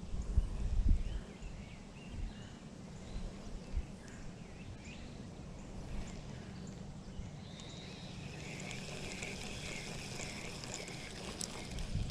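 Riverside outdoor ambience: a steady rush of flowing water with low wind rumble on the microphone in the first second or so, and high warbling calls joining from about eight seconds in.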